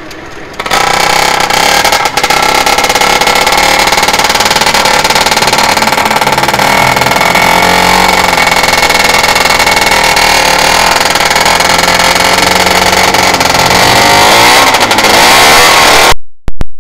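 MZ RE 250 two-stroke racing engine bursts into loud running less than a second in and is held on the throttle, its pitch wavering up and down as it is blipped, with a quick rise and fall in revs near the end.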